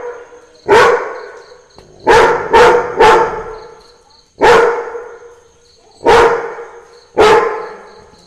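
Labrador barking loudly, seven deep single barks at an irregular pace, two of them close together about two and a half seconds in, each trailing off in an echo.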